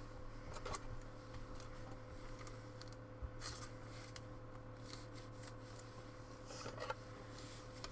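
Faint rustling and light clicks of trading cards being handled and slid against one another, in a few short bursts.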